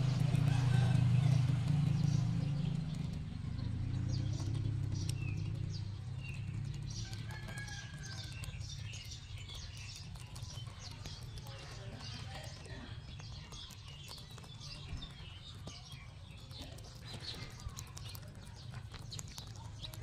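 Two rabbits chewing and crunching green pods close to the microphone: a fast, irregular run of small crisp clicks. A low hum sits beneath, strongest in the first few seconds, and short bird chirps come through now and then.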